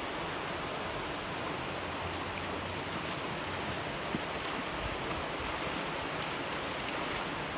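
Shallow stream running steadily over stones, with splashing as someone wades through the water.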